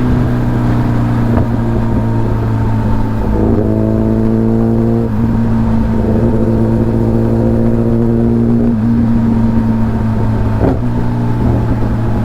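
Kawasaki Ninja ZX-10R's inline-four engine heard onboard while riding. The engine note climbs in pitch under acceleration twice, with short breaks between the pulls and another about ten and a half seconds in.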